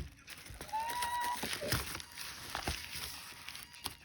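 Package being handled and opened: scattered light knocks and rustling of packaging, with a brief high-pitched squeak about a second in.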